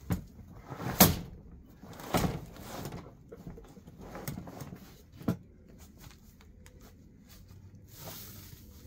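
Dry dead plant debris rustling and crackling as it is pulled up by hand and stuffed into a large sack, with a few sharp knocks, the loudest about a second in.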